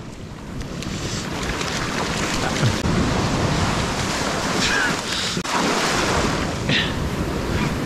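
Shallow ocean surf washing up over the sand around the listener's feet, a steady foaming hiss that builds in the first second, with wind on the microphone.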